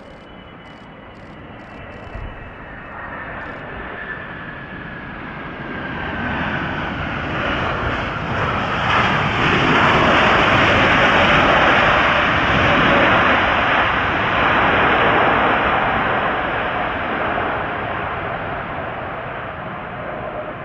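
Boeing 777 twin jet engines in reverse thrust on the landing rollout: a rushing jet rumble with a falling whine, swelling to its loudest about halfway through as the airliner passes, then fading as it moves off down the runway.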